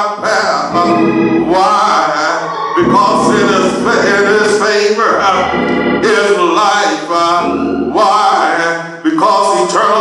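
A man's voice singing in drawn-out phrases over organ accompaniment, with held low organ notes beneath the voice.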